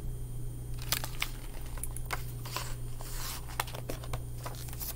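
Paper rustling and crinkling with several sharp taps, from about a second in to about four seconds: the pages of a hardcover picture book being handled and turned.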